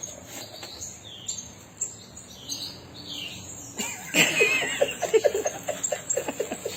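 Parrot giving short, falling chirps, then about four seconds in a louder wavering call followed by a fast run of short repeated sounds.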